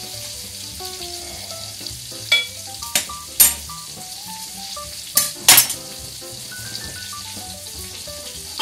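Butter and a rib eye steak sizzling with a steady hiss in a hot cast iron pan, the heat just turned off, with a few sharp clicks about two and three seconds in and again after five seconds.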